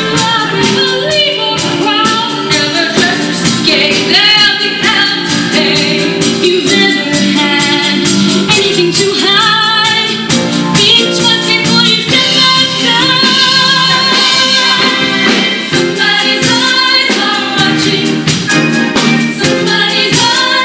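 Female ensemble singing a musical-theatre song over backing music with a steady beat.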